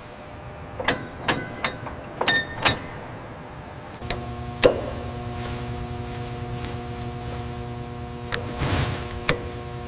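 A series of sharp metal clicks and clinks, some ringing briefly, from tools working on a gearbox assembly. About four seconds in, a steady machine hum starts, with a few more clicks over it.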